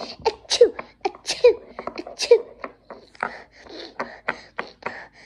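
A child's voice making short wordless vocal sounds: several brief sounds with a falling pitch in the first half, then a quicker run of short breathy bursts.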